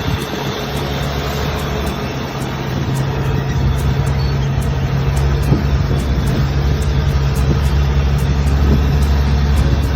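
Longtail boat engine running at a steady speed: a constant low drone over a broad rushing noise.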